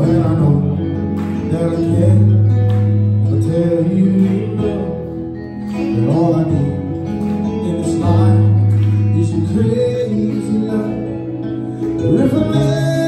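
Live band music from a keyboard and electric guitar, with a man singing, heard from the audience.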